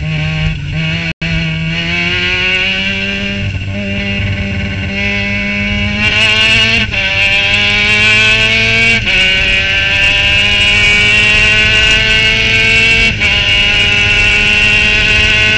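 Formula Mazda race car's Mazda rotary engine at full throttle, heard from the cockpit, rising in pitch as it accelerates down the straight, with quick upshifts that drop the pitch back several times.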